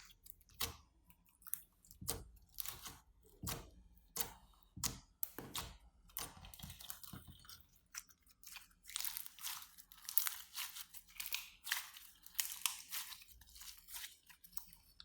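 Slime being squeezed and kneaded inside a plastic bag: irregular squishing with crackling and crinkling from the bag, the crackles coming thick and fast in the second half.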